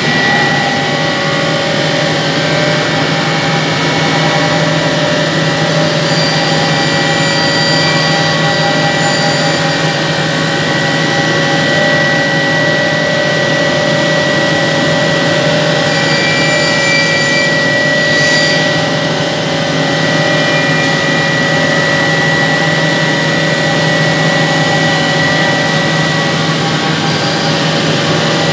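CNC wood lathe running, its motor-driven sanding wheel sanding a spinning wooden spindle: a steady machine whine with a high-pitched tone over a lower hum.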